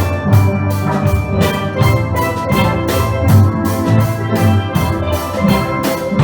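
Steel band playing steelpans live: many ringing pitched notes over a steady, even beat of struck percussion.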